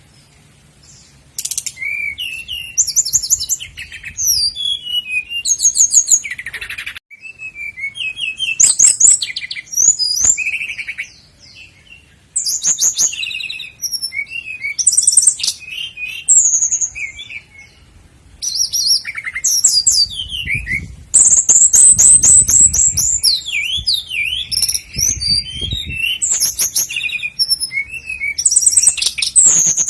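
Common nightingale singing a string of varied, high-pitched phrases separated by short pauses: runs of rapid repeated notes, trills and clear whistles.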